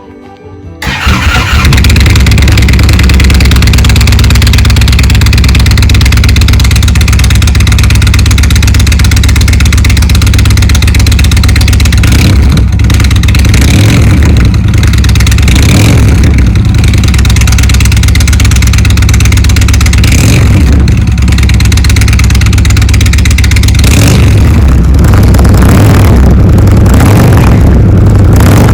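2019 Indian Chieftain Limited's V-twin engine, fitted with Rinehart slip-on mufflers, starting about a second in and then running loud, with several throttle revs in the second half.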